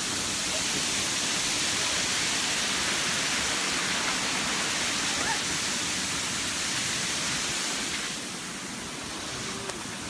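Steady rush of a nearby waterfall, a dense hiss of falling water, easing a little about eight seconds in.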